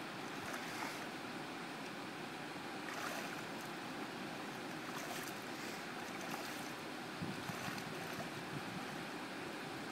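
Steady rush of river water, with a few faint small splashes from hands holding a salmon in the shallows.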